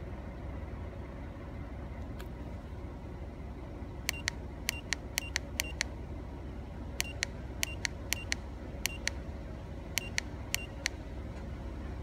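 Three runs of quick, sharp button clicks, about four a second, starting about four seconds in: the arrow keys of a Launch Creader 6001 OBD2 code reader pressed repeatedly to scroll its menu. Under them runs the steady low hum of the pickup truck's idling engine, heard from inside the cab.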